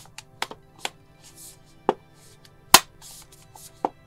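A 13-inch MacBook Pro's aluminium bottom case being pressed down onto the chassis and snapping onto its clips: a string of sharp clicks at uneven intervals, the loudest a little under three seconds in.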